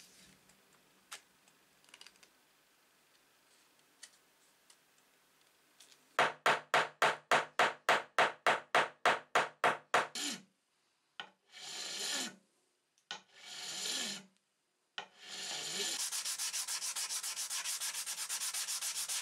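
Sandpaper rubbed back and forth over a wooden knife handle. First comes a run of quick, even strokes, about four a second, then two longer single strokes, then fast, steady sanding near the end.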